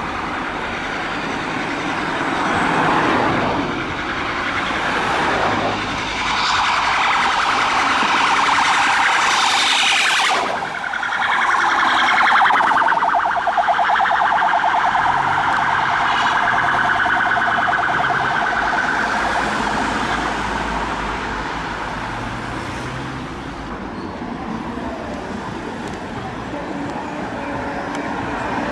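UK police car sirens sounding as marked police cars drive through traffic, with a fast-warbling siren tone loudest through the middle.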